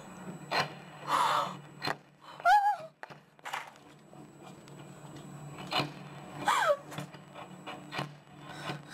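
A rocket artillery strike on a town: a string of sharp explosions at irregular intervals, heard from inside a building. A person's frightened gasps and short cries come in between the blasts, at about one, two and a half and six and a half seconds in.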